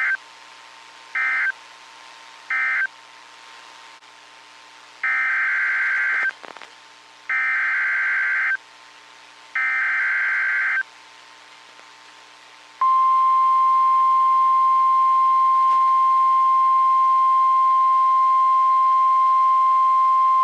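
NOAA Weather Radio Emergency Alert System (SAME) data bursts: three short screeching bursts closing the previous warning, then three longer bursts carrying the header of the next alert. At about 13 seconds in comes the loud, steady 1050 Hz warning alarm tone.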